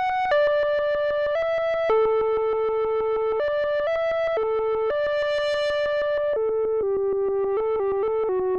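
Moog Sirin monophonic analog synthesizer playing its 'Fake Delay' preset: a single-note melody stepping from note to note, with a fast, even pulsing through each note. The tone grows duller about six and a half seconds in.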